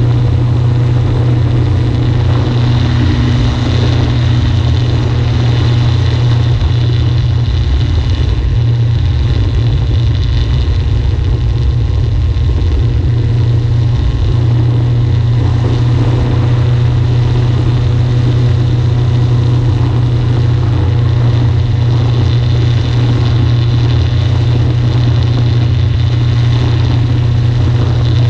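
Kolb Mark III's Rotax 912 UL four-cylinder engine and pusher propeller running steadily in flight, a loud, constant low drone with no change in power.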